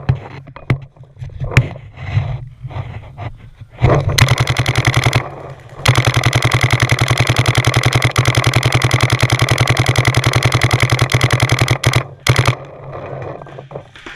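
Paintball marker firing rapidly: a short burst about four seconds in, then a long, steady stream of many shots a second lasting about six seconds. Scattered single pops and clatter come before it.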